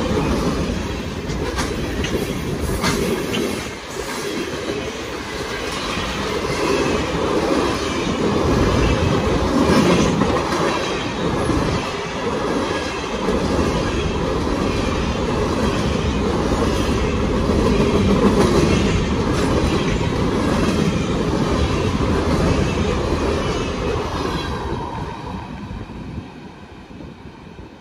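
Freight train's covered hoppers and boxcars rolling past close by, steel wheels clicking over the rail joints in a steady rhythm. Near the end the noise falls away as the last cars pull off.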